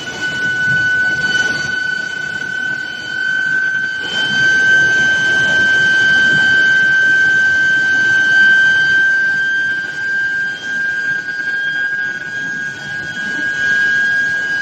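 Steel billet induction heating furnace running: a steady high-pitched electrical whine with overtones, creeping slightly up in pitch, over a constant background noise of machinery.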